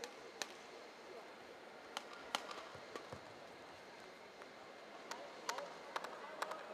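Badminton rally: a series of sharp racket strikes on a shuttlecock, together with short shoe squeaks on the court floor, over a low arena murmur.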